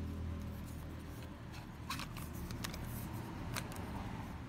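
Plastic casing of a JisuLife handheld fan being handled and its hinged head folded open, giving a few sharp plastic clicks and rubbing in the middle, over a low steady hum.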